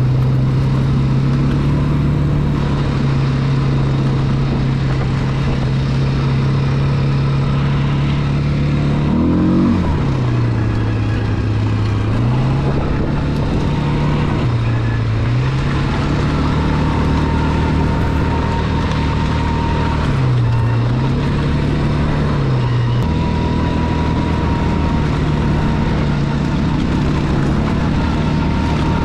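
Small ATV engine running while riding a dirt trail, mostly at a steady note. The pitch rises sharply for a moment about nine seconds in, then drops, and dips briefly twice more before settling.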